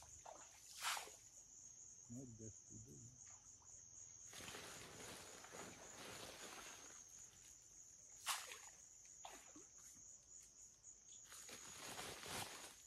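Steady high-pitched drone of insects, with a short splash about a second in as a handful of ground-corn groundbait hits the river, and another short sharp sound about eight seconds in. In between comes rustling as a feed sack is handled.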